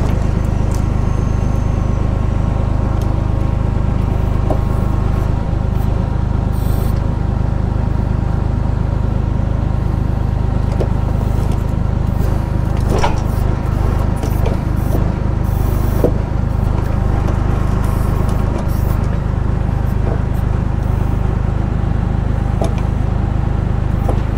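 Tractor engine running steadily, driving the hydraulics of an FTG Forest FB42 timber crane as it is worked, with a few knocks of logs partway through.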